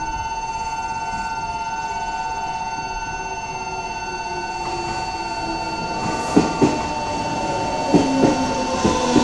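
Japanese level crossing alarm ringing steadily with a pulsing tone while a train slows through the station. The train gives a falling whine, and from about six seconds in its wheels knock over rail joints about five times.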